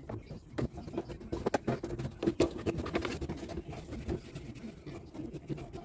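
White plastic sink trap and waste fittings being handled and pushed together by hand: irregular light clicks, knocks and scraping of plastic on plastic.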